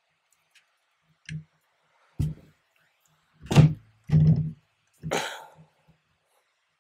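Handling knocks and thumps as cable connectors are pushed into the ports of a Dobot Magician robot arm and the wires are pressed into place: about five separate knocks, the loudest pair around the middle, and a longer rustling one near the end.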